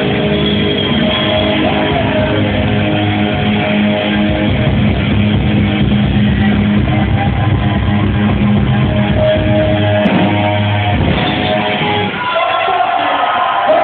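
Live rock band playing loud, with electric guitar, bass guitar and drums. Near the end the drums and bass drop out, leaving a single held note ringing.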